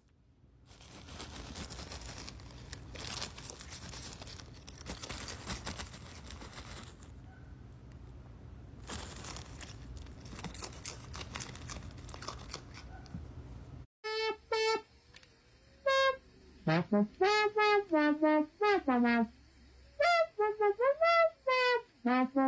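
A raccoon rummaging in a plastic zip-top bag of ring cereal, with dense crinkling and rustling of the plastic. About fourteen seconds in, this cuts to a louder synthesizer melody of gliding, horn-like notes.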